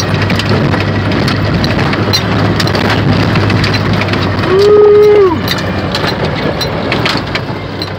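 Dodge Ramcharger driving a rough dirt track in four-wheel-drive low range: a steady engine drone, with the body knocking and rattling over the bumps. About halfway in, the old transfer case's gear whine rises, holds for a moment and falls away, and this is the loudest part.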